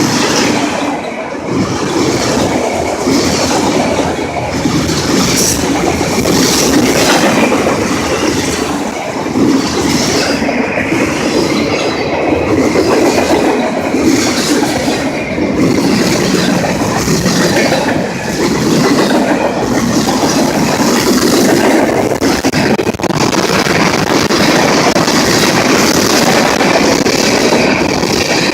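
Florida East Coast Railway mixed freight train's cars rolling steadily past, wheels clattering over the rails, with a thin wheel squeal in the last few seconds.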